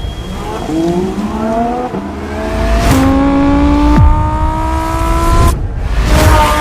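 Lamborghini engine accelerating hard. Its pitch climbs steadily and then drops briefly at each shift, about two and three seconds in and again near the end.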